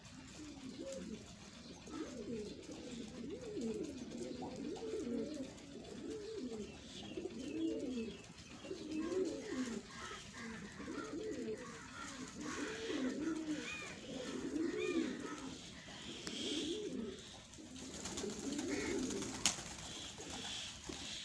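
A flock of domestic high-flying pigeons cooing, several birds overlapping in a continuous run of rising-and-falling coos. There is a single sharp click near the end.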